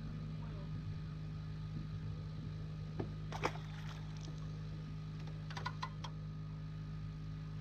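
Steady low motor hum, with a few sharp clicks and taps: two about three seconds in and a quick cluster around five and a half to six seconds.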